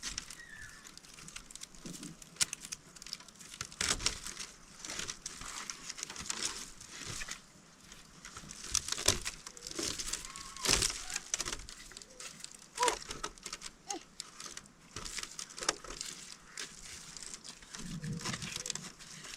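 Irregular rustling, crinkling and light knocks, as of materials being handled, with a few brief faint chirps.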